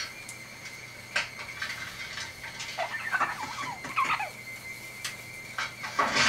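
Severe macaw rummaging under a quilt, crunching and tearing cardboard in scattered sharp clicks, with a few short squeaky calls about three to four seconds in.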